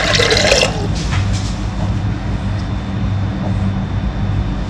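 Water poured into a pressure cooker over soaked chickpeas: a loud splashing pour in the first second, then a steady low hum.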